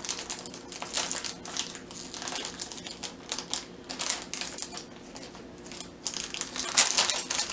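Foil packaging bag being crinkled and worked open by hand, in irregular rustles that get loudest near the end.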